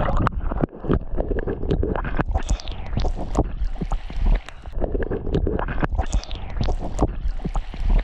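Lake water splashing and sloshing irregularly as a person wades and swims, with a heavy low rumble on the microphone underneath.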